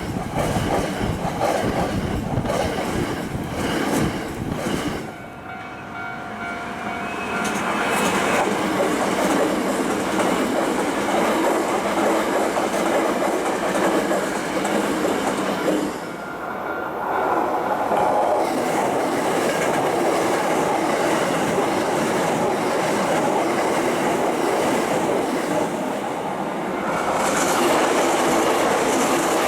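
Hankyu Kyoto Line electric trains running past, their wheels clacking over the rail joints. The sound dips briefly about five seconds in and again about sixteen seconds in, as one pass gives way to the next.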